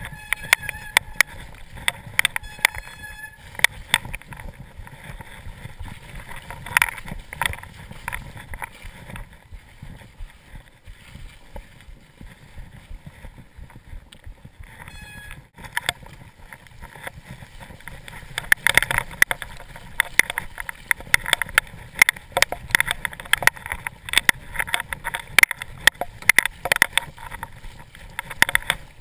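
Mountain bike rattling and clattering over a rough, muddy trail, with tyre rumble underneath. A dense run of sharp knocks and clicks thins out about a third of the way in and gets busy again for the last ten seconds.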